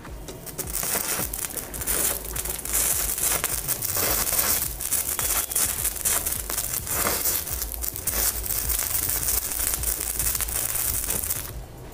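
Stick-welding arc crackling and sizzling steadily as a sparkler's wire, used as the electrode on an ARC 200 inverter welder, burns against steel rods. It starts about half a second in and cuts off shortly before the end.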